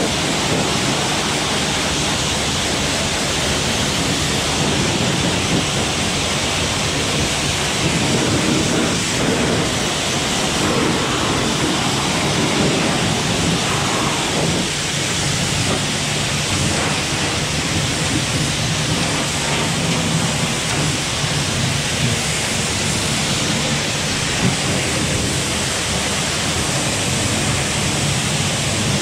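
Pressure washer spraying a jet of water onto a tractor's engine, a loud steady hiss of spray that holds without a break.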